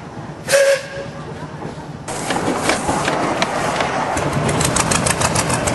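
Narrow-gauge steam locomotive giving a short whistle toot. About a second and a half later a sudden loud hiss of steam sets in as it moves off, with a quickening run of sharp beats over it.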